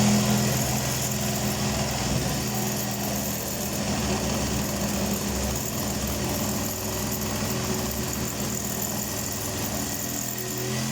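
Electric power tool motor running steadily and without pause for about eleven seconds, then switched off and spinning down with falling pitch.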